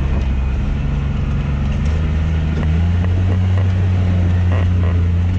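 Polaris Ranger side-by-side's engine running steadily under load on a rough trail, its pitch stepping up a little about halfway through, with a few light knocks in the second half.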